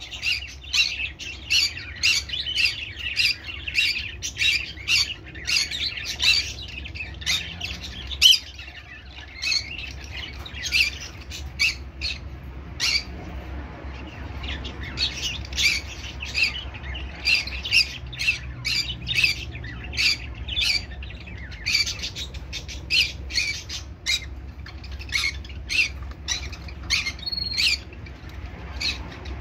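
Conure parrot squawking in quick runs of short, sharp calls, broken by a few brief pauses, over a steady low hum.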